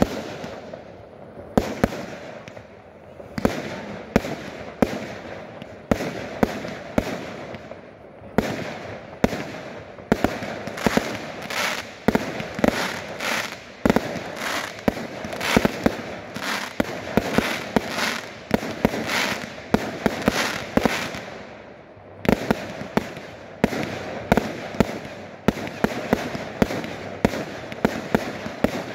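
Professional fireworks display: aerial shells and comets bursting in rapid succession, many sharp bangs close together over a continuous noisy fill. They thin out briefly about three-quarters of the way through, then pick up again.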